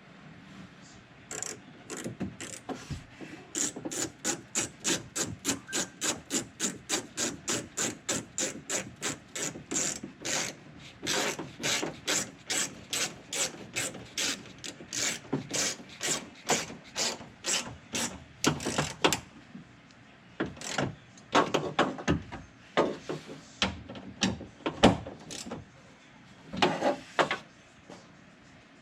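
A hand ratchet clicking in an even run of about three clicks a second as door handle screws are driven back in, then slowing to scattered clicks and short bursts for the last several seconds.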